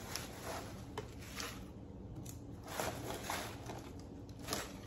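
Baby spinach leaves rustling in a few short, soft, crinkly bursts as handfuls are pulled from a plastic clamshell container and dropped into a bowl on a kitchen scale.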